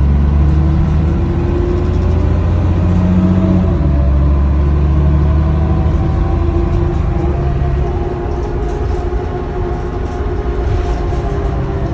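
2005 NovaBus LFS city bus running: a steady low diesel drone with whining drivetrain tones, the pitch lines shifting slowly and the sound easing off slightly about two-thirds of the way through.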